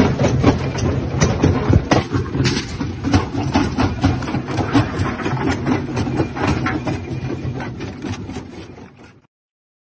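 Rock-crushing machinery running, with rocks knocking and clattering as they tumble through the feed chute and hopper over a steady low rumble. It fades away near the end and cuts off.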